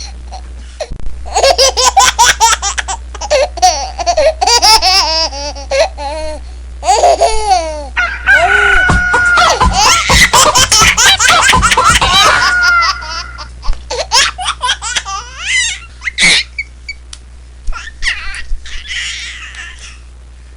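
Laughter sound effect: repeated bursts of hearty laughing, busiest in the first two-thirds and thinning to scattered bursts near the end, over a steady low hum.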